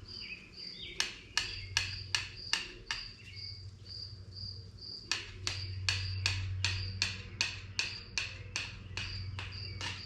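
Sharp, irregular taps of a hand tool working the old oil pan gasket off a Chevy 350 block, two to three a second. Crickets chirp steadily at a high pitch behind them.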